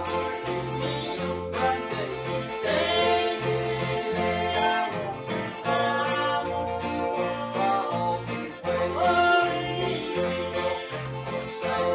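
Live country-style gospel music: acoustic and electric guitars over a steady, repeating bass line, with a lead melody on top.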